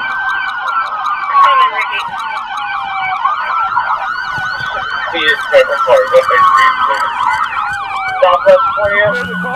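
Police car sirens sounding together: one in a slow wail that rises, holds and falls about every four seconds, another in a fast yelp of several short sweeps a second.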